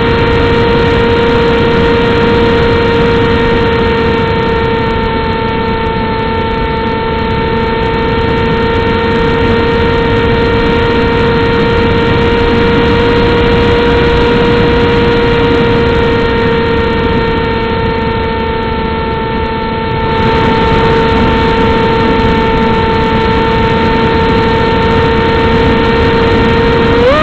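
RC model aircraft's motor and propeller running at steady throttle, heard from a camera on board: a steady whine over wind noise on the microphone. The pitch jumps up right at the end as the throttle is opened.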